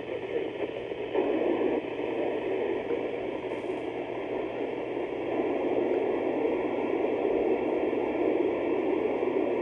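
Steady FM receiver hiss from an Icom IC-705 transceiver's speaker, tuned near 437.790 MHz on the ISS repeater downlink with no station coming through the noise.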